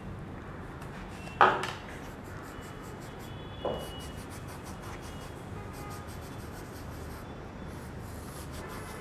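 Handling of a small plastic-framed chalk slate: rubbing and shuffling, with two short sharp scrapes or knocks, a loud one about a second and a half in and a softer one about two seconds later, over a steady low hiss.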